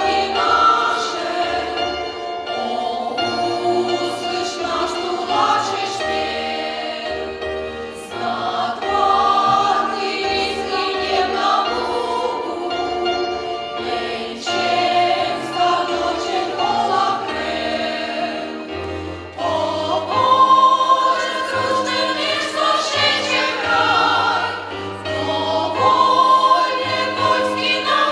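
Folk choir singing a song in several voices; the sound grows fuller with lower notes about two-thirds of the way through.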